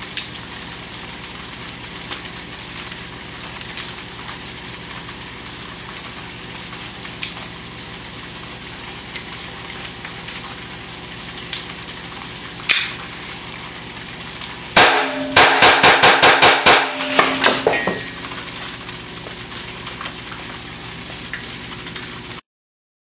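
Makarov 9x18mm pistol fired in a rapid string of about eight to ten shots into a steel bullet trap, with some ringing after the shots, over a steady background hiss. Several single sharp clicks come before the string.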